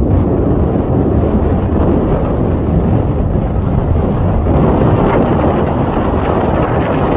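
Wind buffeting the microphone over the steady low rumble of a passenger ferry under way.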